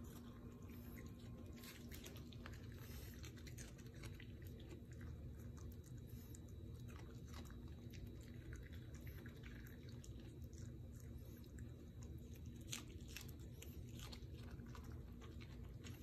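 Small dog chewing pieces of raw sweet pepper off a carpet: faint, scattered crunches and bites over a low steady hum.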